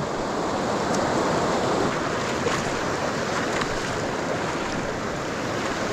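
Steady rush of a mountain stream's flowing water, an even unbroken hiss.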